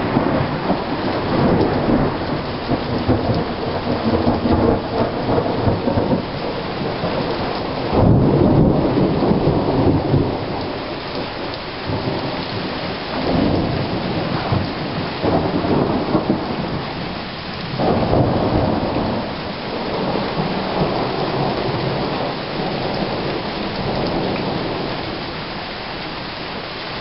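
Thunderstorm: rain falling steadily, with repeated rolling rumbles of thunder. The loudest peal starts suddenly about eight seconds in, and the rumbles grow fainter near the end.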